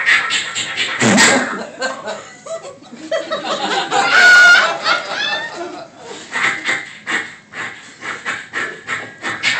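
Audience laughing, mixed with sound effects made by mouth into a microphone, with a loud pitched vocal cry about four seconds in.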